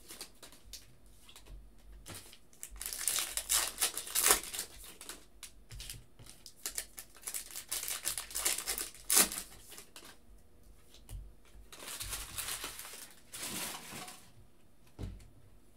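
Foil wrapper of a trading-card pack being torn open and crinkled by hand, in several separate bursts of rustling, with a single sharp tap near the end.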